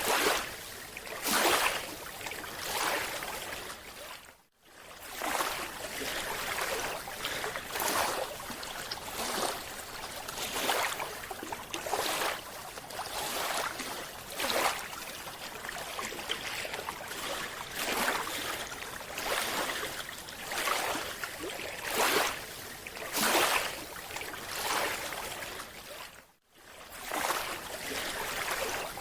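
Water noise in repeated rushing surges, roughly one every second or so. The sound cuts out briefly twice, at about four and a half seconds and near the end.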